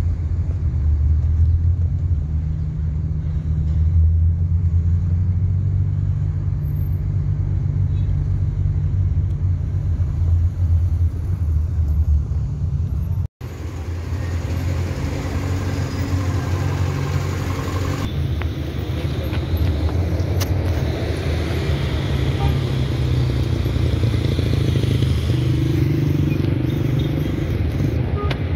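Street traffic noise: cars driving past with a steady low rumble. The sound breaks off for an instant about 13 seconds in and carries on as similar traffic.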